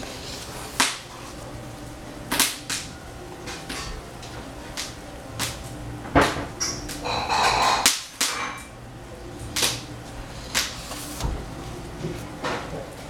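Household clatter: irregular sharp knocks and clicks, about a dozen, with a longer clattering rustle about seven seconds in. The pages of a large book are turned in between.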